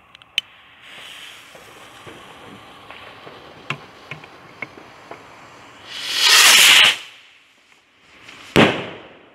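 A consumer firework rocket is lit with a lighter: a click, then the fuse hissing faintly with a few small pops for several seconds. About six seconds in comes a loud whoosh lasting about a second as the rocket launches, and near the end a single sharp bang as it bursts.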